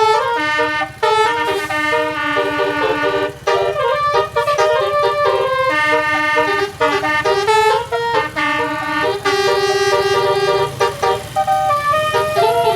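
Bus telolet horn playing a tune of held notes that change pitch every half second or so, often sounding several notes together, over the steady low rumble of the bus.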